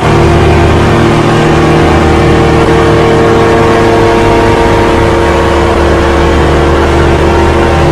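Vacuum cleaner switching on and running steadily, a loud motor hum and whine.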